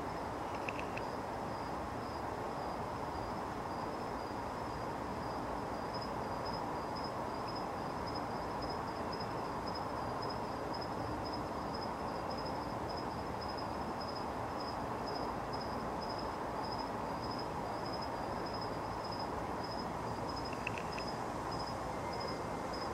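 Night-time outdoor ambience: a steady background hiss with a high, even, pulsing insect trill. Two brief faint chirps come about a second in and near the end.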